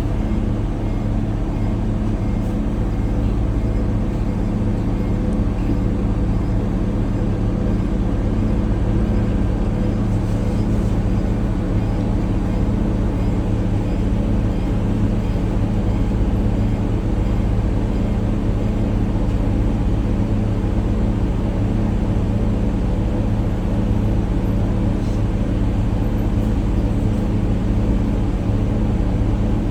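A CNG city bus engine running steadily, heard from inside the bus. It makes a constant low drone that holds one pitch throughout.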